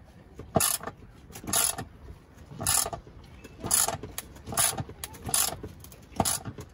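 Hand ratchet with a 10 mm socket clicking in seven short bursts, about one a second, as the seat's harness-mount bolts are tightened back down.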